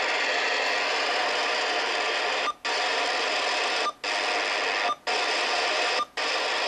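President Johnny III CB radio receiving AM with the squelch open: a steady hiss of band noise from its speaker, with no squealing or whine. Four times it cuts out for an instant with a short beep as the channel is stepped up.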